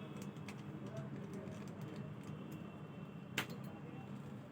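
Faint clicks and taps of small laptop parts and a screwdriver being handled at the M.2 slot's mounting screw, with one sharper click about three and a half seconds in, over a steady low hum.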